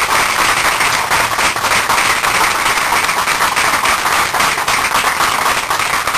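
Audience applauding, a dense patter of many hands clapping that thins out at the end.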